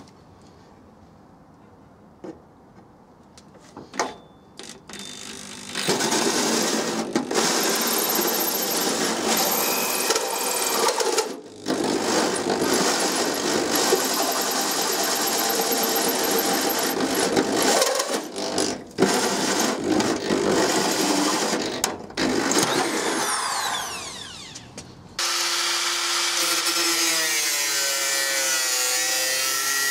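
A few light clicks, then a power tool cutting into steel sheet in several runs with short pauses, spinning down with a falling whine near the end; a different steady cutting sound with a wavering tone follows straight after.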